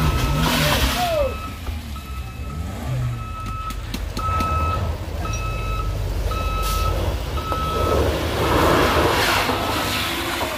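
Vehicle reversing alarm beeping steadily, one short high beep about every three-quarters of a second, over the low rumble of vehicle engines. About eight seconds in a louder rush of engine and tyre noise swells as a Toyota Fortuner SUV drives past close by on the rough road.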